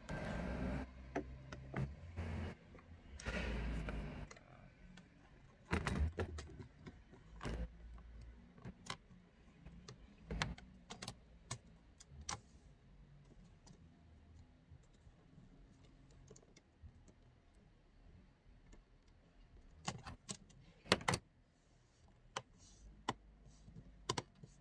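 Scattered sharp clicks, taps and light rattles of hands handling a plastic cab trim panel and fuse box cover, with rustling in the first few seconds.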